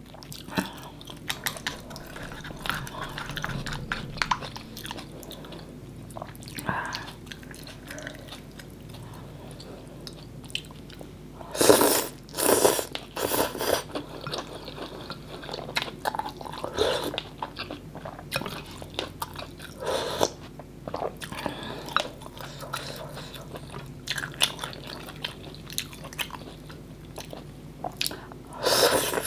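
Close-miked mouth sounds of a person eating a bowl of noodle soup: steady chewing with small wet clicks and smacks. There is a louder run of sound about twelve seconds in and another near the end, as noodles are drawn into the mouth.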